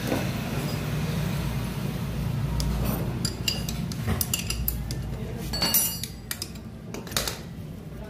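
Steel hand wrenches clinking and clanking against the flywheel nut and each other while the motorcycle's magneto flywheel nut is being undone: a series of sharp metallic clinks with brief ringing, mostly in the second half.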